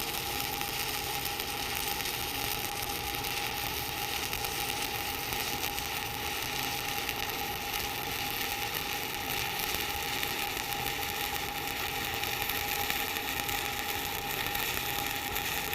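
Electric welding arc running steadily through a fill pass on a T-joint, a continuous even crackling sizzle with a faint steady high tone under it.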